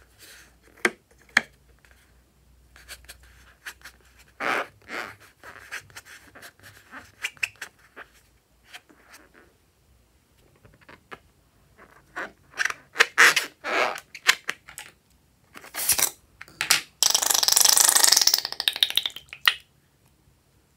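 Rubber balloons handled with squeaks, rubs and light taps, then near the end a loud crackling spurt lasting about two and a half seconds as the foamy green filling is squeezed out of a balloon into a plastic bowl.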